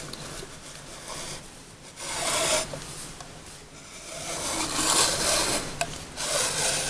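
Plastic anatomical eye model being turned by hand on its stand: rasping, rubbing scrapes of plastic on plastic in several bursts, loudest about two seconds in and again from about four and a half seconds on.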